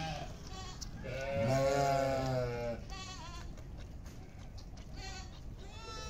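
Sheep and goats bleating: one long, wavering bleat about a second in, then a few shorter, fainter calls.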